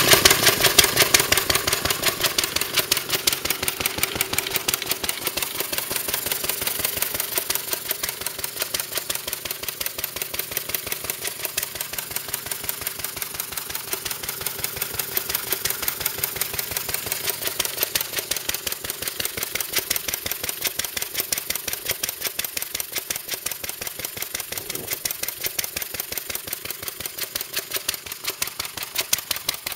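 Restored Lister single-cylinder stationary engine running steadily, a rapid, even beat of firing strokes.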